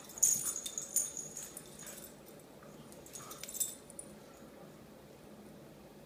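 A dog and a cat play-fighting on a tile floor: scuffling with claws clicking on the tiles and a jingling of small metal, in a flurry about a second in and a shorter one around three and a half seconds.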